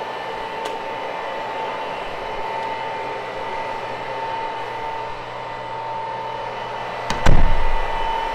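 A motor running steadily with a constant whine, and a single heavy thump about seven seconds in.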